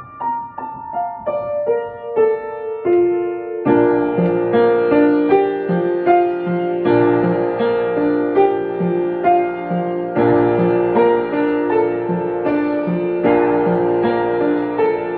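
Background piano music: single notes stepping down in pitch at first, then fuller chords over a bass line from about four seconds in.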